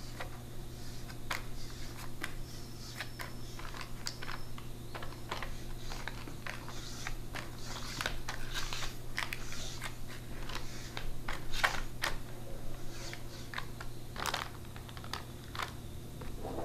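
A spatula scraping and tapping thick cake batter in parchment-lined metal baking tins: irregular soft scrapes, clicks and paper crinkles, over a low steady hum.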